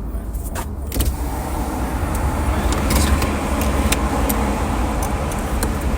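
Car engine running slowly, heard from inside the cabin as a steady low rumble, with a few light clicks.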